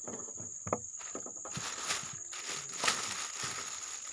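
A clear plastic bag rustling and crinkling as it is handled, loudest through the middle, with a few sharp knocks. A steady high-pitched insect drone runs underneath.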